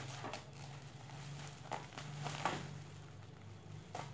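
Thin black plastic bag wrapping crinkling in a few short rustles as hands pull at it to unwrap a package, over a steady low hum.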